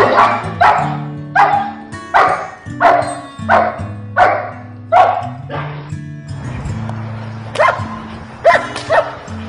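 German Shepherd barking at a protection-training helper, deep sharp barks about one every 0.7 seconds, stopping about six seconds in, then a few more barks near the end. Background music plays underneath.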